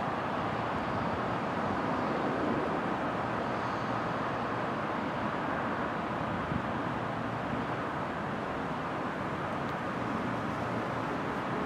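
Steady distant traffic noise, an even rushing hum with nothing standing out from it.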